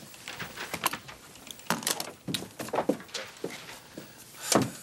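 A string of light knocks, clicks and rustles of things being handled around an office desk, with a heavier thump about four and a half seconds in.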